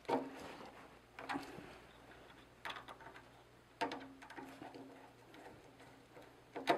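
Five light, irregular clicks and taps, each with a brief low ring, as a screwdriver and the wire ends knock against the terminal screws and steel housing of an electric water heater element while its wires are reattached.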